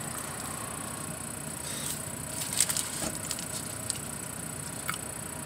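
Paper burrito wrapper crinkling in the hands in a few short crackles, mostly in the middle, over steady background noise.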